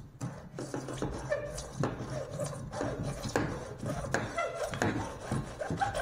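Hand hacksaw cutting through PVC pipe: repeated rasping back-and-forth strokes, roughly two a second.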